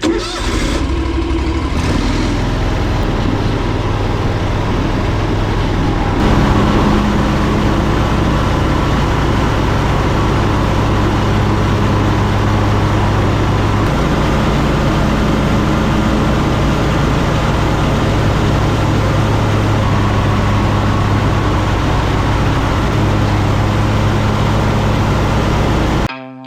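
Zero-turn mower engines running steadily, a continuous drone whose tone shifts about two seconds in and again about six seconds in, then cuts off abruptly near the end.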